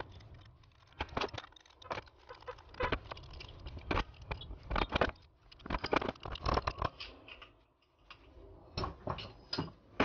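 Irregular metallic clinks and taps as nuts are fitted and tightened with a spanner onto the metal impeller housing of a submersible pump motor.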